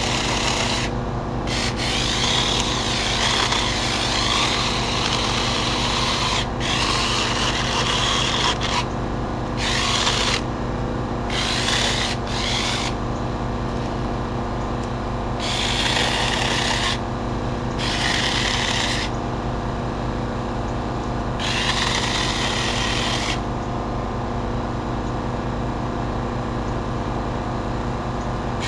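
Small cordless electric mini chainsaw cutting brush and branches, its chain running in repeated bursts that start and stop many times, then falling quiet for the last few seconds, over a steady low hum.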